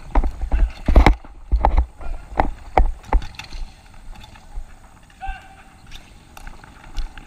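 Irregular sharp clacks of hockey sticks and ball on a plastic dek hockey court, most of them in the first three seconds, over low thudding rumble on a body-worn camera. A brief shout comes about five seconds in.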